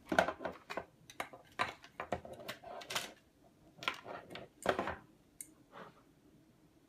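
Small hard plastic toy pieces and their packaging being handled: irregular clicks, taps and short rustles that die away after about five seconds.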